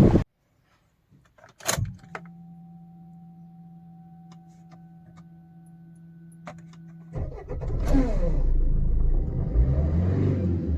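Maruti Suzuki SX4's 1.3 diesel engine starting: a click with the ignition switched on, a steady electric hum of the fuel pump for about five seconds, then the engine cranks and catches about seven seconds in and revs up and down. It starts now that the key's transponder chip has been refitted and the immobilizer recognises the key.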